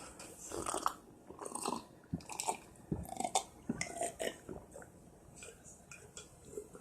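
A person chewing and crunching something close to the microphone: irregular crackles and clicks of eating.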